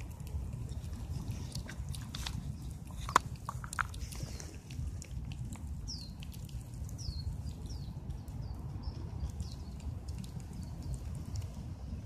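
Fox squirrel chewing a peanut close up: small crunching clicks, with one sharp click about three seconds in, over a steady low rumble.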